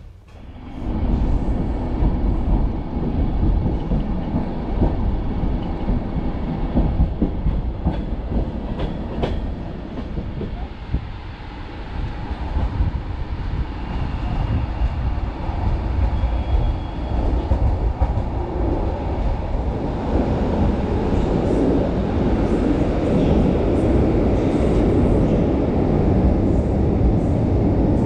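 Passenger railway coach rolling through a station during a shunting move, heard from inside the car. A steady low rumble of the running gear comes in about a second in, with occasional sharp clicks over the rail joints. It eases off a little in the middle and grows louder toward the end.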